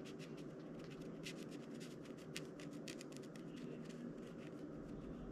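Quick, irregular scratching of a small tool on a paper map as one mountain symbol is filled in, faint and dry.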